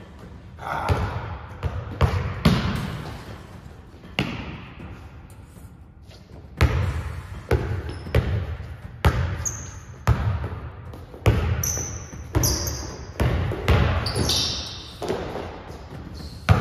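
Basketball being dribbled on an indoor court, the bounces echoing in the large gym. They come irregularly at first, then steadily about every half-second to second through the second half. A few short, high squeaks come in among them, typical of sneakers on the court floor.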